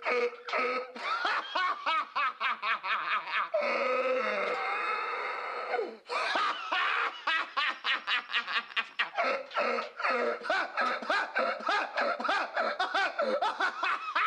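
A man laughing hard and without a break, in rapid 'ha-ha' pulses of several a second. About three and a half seconds in, the laugh turns into one long drawn-out sound for a couple of seconds, sliding down in pitch, then the rapid pulses start again.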